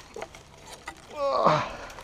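A man's short groan of effort, falling steeply in pitch, about a second and a half in, with faint snaps and rustles of dry brush before it.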